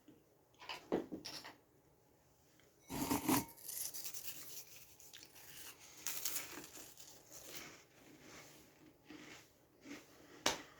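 Dry crackers being handled and eaten: irregular crinkling and crunching noises, loudest about three seconds in, with a sharp click near the end.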